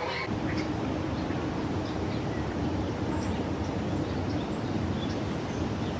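Steady, even rumbling noise with a faint steady hum and scattered short high chirps.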